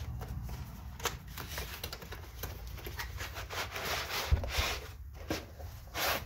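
Torque wrench packaging being opened and handled: irregular rustling and crinkling with scattered clicks and knocks. The loudest knock comes a little past the middle, and a louder rustle comes near the end.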